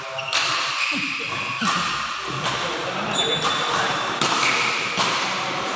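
A badminton rally in an echoing sports hall: rackets striking the shuttlecock again and again, about once a second, with short squeaks from shoes on the court floor. Voices murmur in the background.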